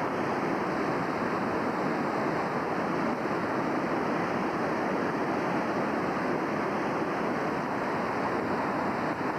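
Flooding river rushing, a steady, even sound of fast-moving water.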